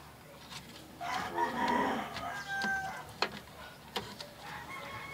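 A rooster crowing once, a long call lasting about two seconds starting a second in, followed by a few sharp clicks.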